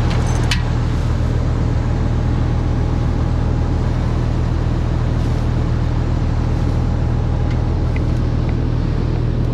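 Diesel engine of heavy earthmoving equipment running steadily at a constant speed, with a short metallic click about half a second in.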